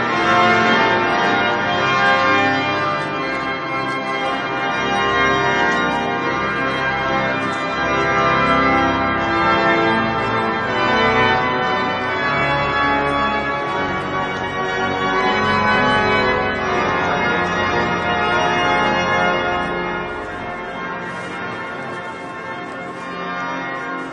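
Cathedral pipe organ playing full processional music as the procession enters. About twenty seconds in it grows quieter and church bells ringing take over near the end.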